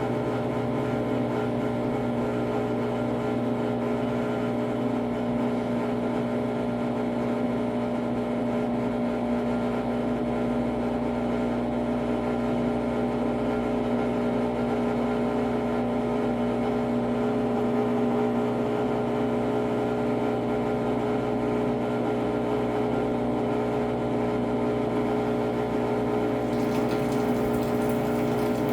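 Brastemp Ative BWL11 11 kg washing machine in its intermediate spin, the drum and motor running at a steady speed with an even hum. A hiss comes in near the end.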